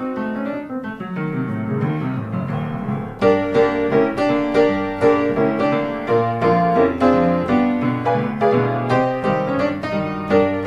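Background piano music; about three seconds in it turns louder and busier, with many quick notes.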